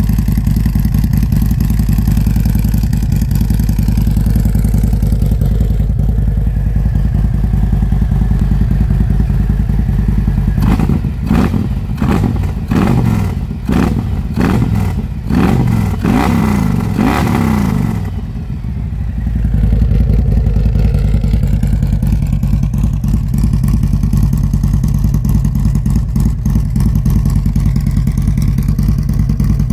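Harley-Davidson Road Glide Special's Milwaukee-Eight 114 V-twin running through a newly fitted Sharkroad aftermarket exhaust, idling steadily. About a third of the way in, the throttle is blipped several times, each rev rising and falling, then it settles back to idle.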